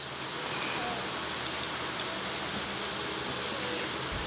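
A few faint, light clicks of a plastic toy race car being handled, its snap-together body parts pressed and fitted, over a steady background hiss.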